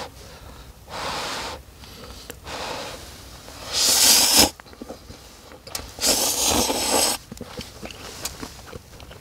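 A person blowing on and slurping hot instant cup noodles: four breathy bursts of air, the loudest about four seconds in and another from about six to seven seconds in.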